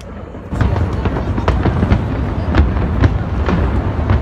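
Aerial fireworks shells bursting in a steady run of sharp bangs, about two a second, over a continuous low rumble, growing louder about half a second in.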